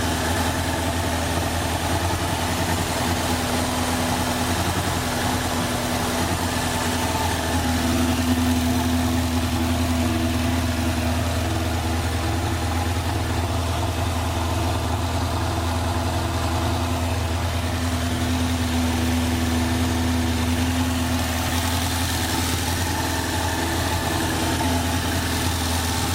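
1985 Suzuki GSX-R750's air-and-oil-cooled four-cylinder engine idling steadily.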